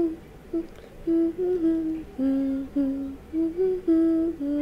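A voice humming a slow, simple tune of separate held notes that step up and down.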